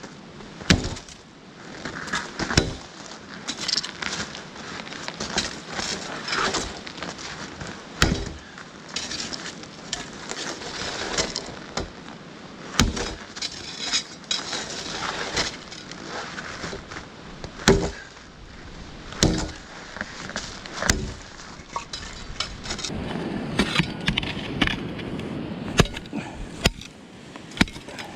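Irregular sharp impacts of a steel sapper shovel blade striking wood, over steady wind noise.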